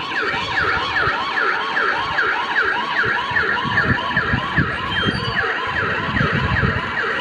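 Siren sound in a fast yelping pattern: a pitch that sweeps up and down about three times a second, repeating evenly throughout, over a loud low rumble with knocks.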